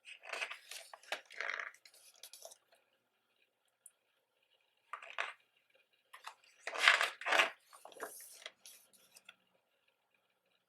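Pages of a thick photo book being turned and handled: paper rustling in several bursts, the loudest about seven seconds in.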